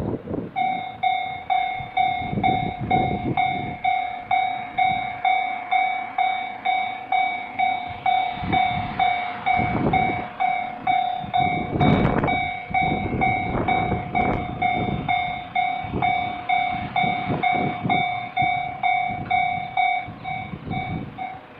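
Japanese railway level crossing's electronic warning bell starting up and ringing in quick, even repeated dings, the signal that a train is coming. Irregular gusty rumbling noise runs underneath, strongest around the middle.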